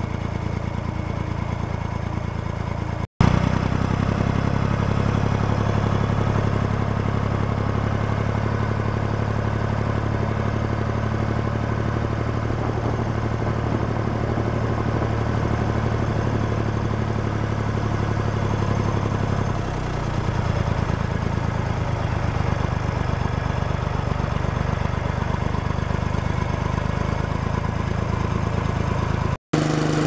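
Engine of a small ride-on tractor running steadily as it drives along, a constant low hum whose note shifts about two-thirds of the way through. The sound drops out briefly twice, about three seconds in and near the end.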